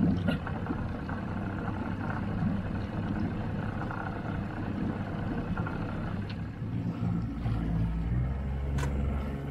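Outboard motor running steadily as a small boat moves through the water, a low hum. About three quarters of the way through, the engine's note changes to a deeper, steadier drone.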